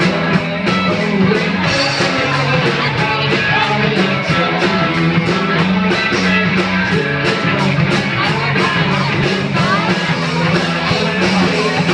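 Live rock band playing electric guitars, bass guitar and drums, with a steady drum beat and a man singing.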